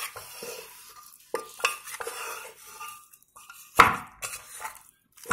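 A spatula stirring spice-coated beef and onions in a metal pressure cooker pot: irregular scrapes and knocks against the pot's side, with one sharper, louder knock about four seconds in.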